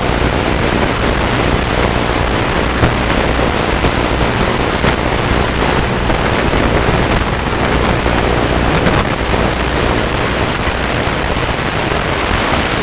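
AM radio static from a boombox tuner with no station tuned in, taken straight from its headphone jack: a steady hiss with scattered crackles and a low hum underneath.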